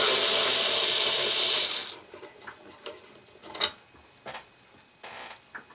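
Electric drill/driver spinning out a case screw, running steadily for about two seconds and then stopping, followed by a few light clicks and taps of handling.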